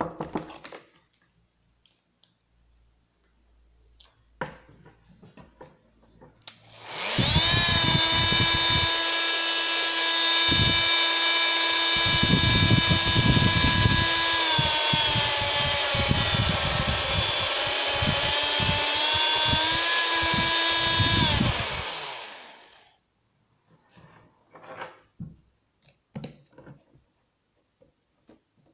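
Bosch PMF 220 CE oscillating multi-tool, fitted with a triangular sanding pad, switched on about seven seconds in and run free in the air with a steady high whine and buzz. Its pitch sags in the middle of the run and climbs back. It is switched off and winds down a little past twenty seconds, with a few light handling clicks before and after.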